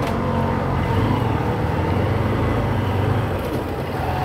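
Motorcycle engine running at low speed while the bike rides along a road: a steady low hum over road noise, a little louder in the middle.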